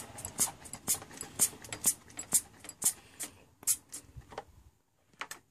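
MityVac hand pressure pump being worked with short, sharp strokes about twice a second, pumping the line up to leak-test a boost control solenoid. The strokes thin out and stop about four seconds in.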